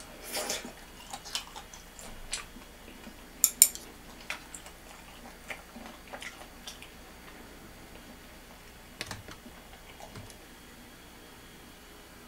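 Eating sounds: a bite into a baked rice-paper roll filled with duck and chives, then chewing, with scattered sharp clicks of chopsticks and ceramic dishes. The loudest is a sharp double click about three and a half seconds in.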